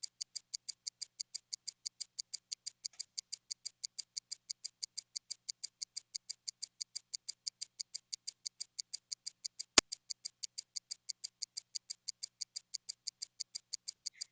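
Ticking clock sound effect: a steady, even run of crisp ticks, about four a second, with one sharper click about ten seconds in.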